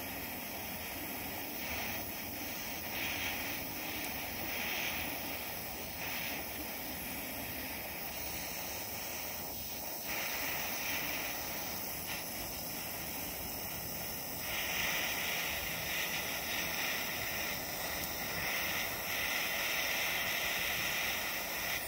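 Handheld blowtorch flame hissing steadily against a stainless steel 3D printer nozzle, heating it red hot to burn off the built-up plastic. The hiss grows a little louder about two-thirds of the way through.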